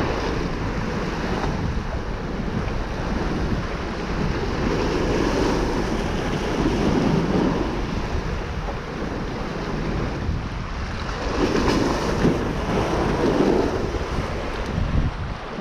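Strong wind buffeting the microphone over sea waves surging against the pier rocks, the noise swelling and easing in a couple of long surges.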